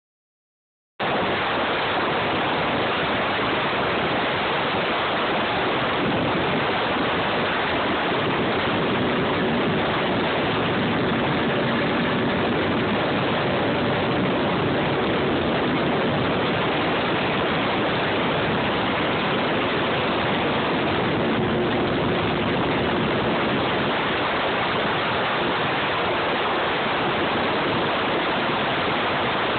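Steady rushing noise of wind and water on a phone's microphone aboard a powerboat running at speed, with a faint engine drone underneath. The sound comes in abruptly about a second in.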